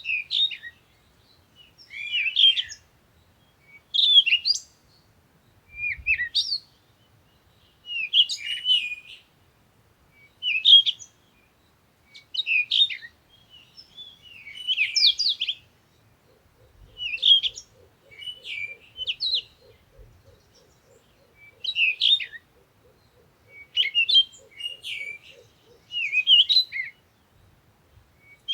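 Songbird singing, short chirping phrases repeated about every two seconds; from about halfway through, a faint, much lower rapid pulsing runs underneath for several seconds.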